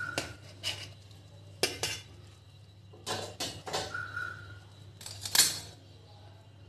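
Stainless steel mesh strainer and pot knocking and clinking together as they are handled after draining boiled soya chunks: scattered metal knocks, the loudest about five seconds in, with a short metallic ring about four seconds in.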